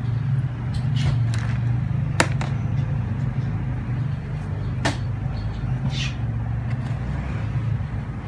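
A few sharp taps and clicks as a plastic blender cup is knocked and emptied of coarsely ground raw peanuts, over a steady low hum.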